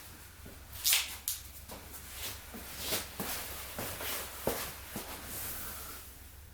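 Wood fire in a fire-pit stand crackling, with irregular sharp snaps and pops, the loudest about a second in, over a soft hiss.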